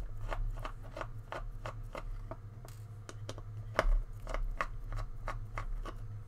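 Small screwdriver clicking steadily as tiny screws are worked out of a handheld radio's circuit board, about three clicks a second, with one louder click about four seconds in. A steady low hum runs underneath.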